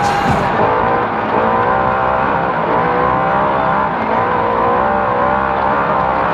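A naturally aspirated race engine heard from inside the vehicle at speed, running hard. Its pitch rises and falls repeatedly with the throttle over a constant rumble of tyre and chassis noise.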